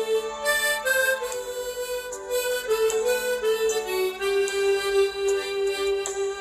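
Harmonica playing a slow melody, moving through short notes and then holding one long note over the last two seconds.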